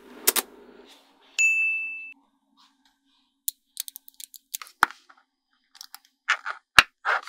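Small magnetic metal balls clicking sharply as they snap onto one another, a run of separate clicks through the second half. Earlier, a ball-built wall is set down on the table with a short scrape and click, and about a second and a half in comes a single ding, a clear bell-like tone fading within a second.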